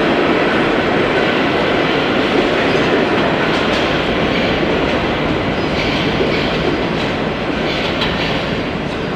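R44 subway train pulling out of an underground station, its wheels rumbling and clacking on the rails and slowly fading as it draws away into the tunnel.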